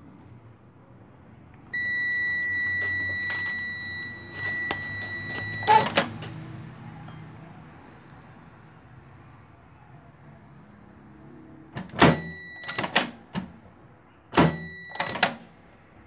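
Multimeter continuity beeper: one steady high beep held for about four seconds, cut off among knocks and clatter, then two short beeps with knocks near the end. It sounds as the test leads bridge the microwave oven's switch contacts, which the title calls stuck.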